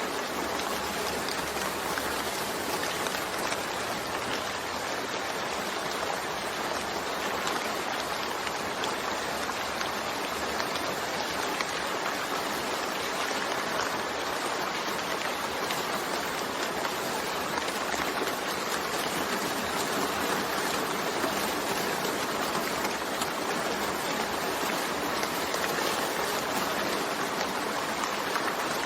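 Steady, continuous rainfall: an even hiss of rain with no thunder.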